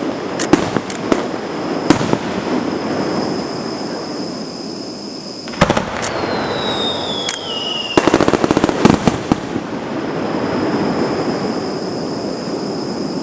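Fireworks going off: sharp bangs, then a falling whistle and a dense burst of rapid crackling about eight to nine and a half seconds in.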